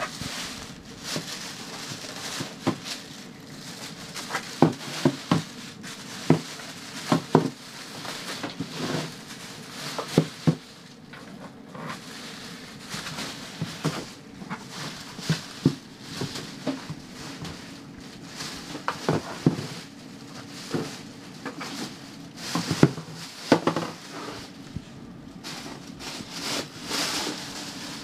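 Thin plastic garbage bag crinkling and rustling as a monkey pulls and pushes at it over the garbage can, with irregular sharp crackles and knocks.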